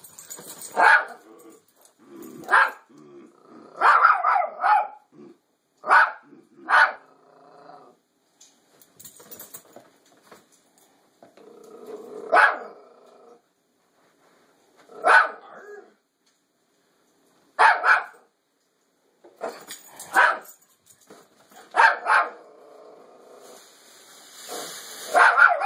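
Toy fox terrier barking at a fake deer: about a dozen single sharp barks spaced out with pauses, including a quick run of several barks around four seconds in.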